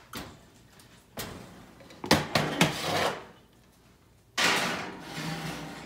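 Kitchen oven door being opened and a baking pan set into the oven, with several clunks and clatters about two to three seconds in, then a sudden louder rush of noise a little past four seconds that fades over about a second and a half as the door is handled.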